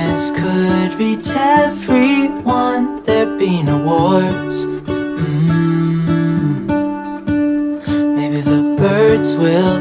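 Background music: an acoustic guitar song with a singing voice.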